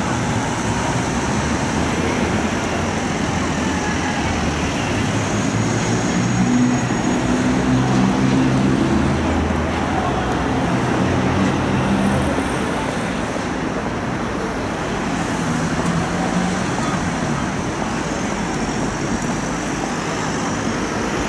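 Busy city-street traffic: a steady wash of road noise with the hum of passing vehicle engines, strongest in the middle.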